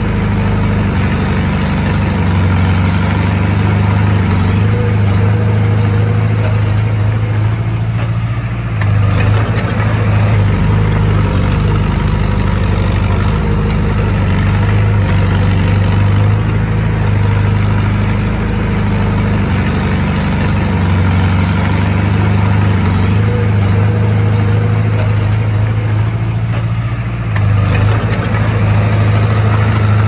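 Komatsu D20A bulldozer's diesel engine running steadily, dipping briefly in level about eight seconds in and again near the end before coming back up.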